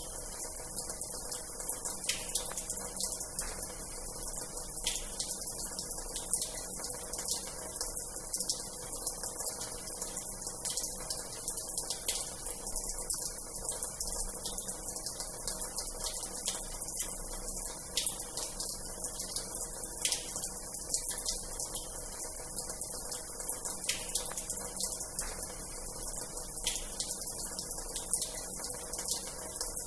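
Water running steadily from the tap of an old washhouse into its basin, a continuous splashing hiss dotted with many small, sharp splashes.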